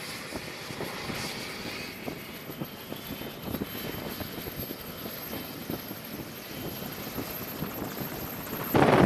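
MH-60 Sea Hawk helicopter ground-running on deck before take-off: its rotor turns steadily over a high, steady whine from its twin turboshaft engines. Near the end a much louder rush of noise comes in suddenly.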